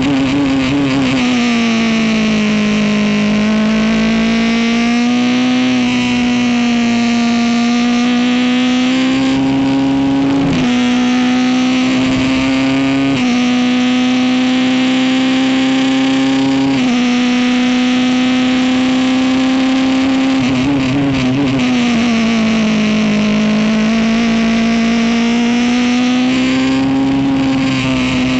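Ligier race car's Honda engine running hard at high revs. Its note sags twice and then climbs back, and it is cut briefly three times in the middle stretch.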